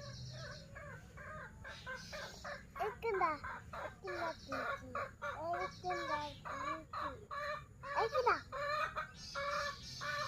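Chickens clucking: a busy run of short calls, several a second, louder after the first couple of seconds.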